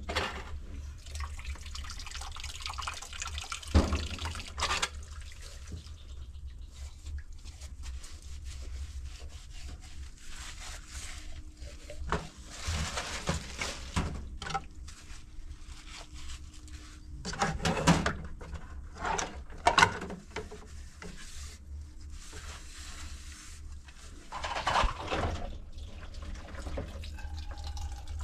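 Water running and splashing, with intermittent knocks and clatter of things being handled.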